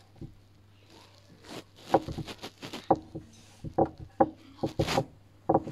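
A quick run of irregular knocks and thumps, starting about two seconds in and going on until near the end.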